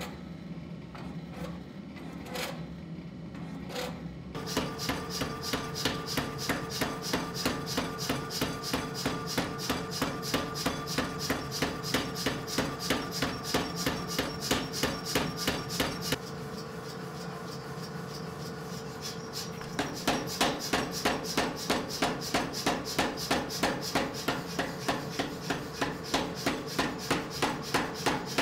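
Power hammer drawing out a glowing pattern-welded steel bar, striking in rapid, even blows about three a second over a steady machine hum. The blows follow a few seconds of low hum and scattered clicks, ease off for a few seconds midway, then resume at full strength.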